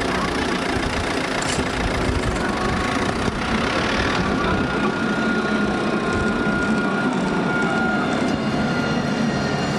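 Steady street traffic: a car engine running close by at low speed while a tram approaches along its track, with a faint steady whine for several seconds in the middle.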